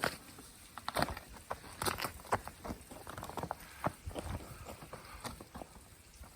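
Footsteps of a hiker walking on a snowy mountain trail: a run of short, irregularly spaced steps.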